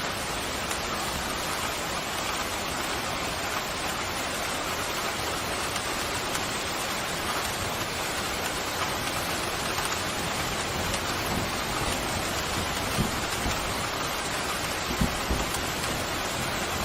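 Steady downpour of rain, an even hiss with no let-up, with a few brief low knocks in the last few seconds.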